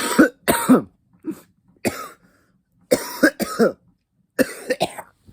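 A man coughing hard again and again, in a string of short loud bouts with brief pauses between them. It is a coughing fit from inhaling cannabis vapor, which he says is hurting his throat and lungs.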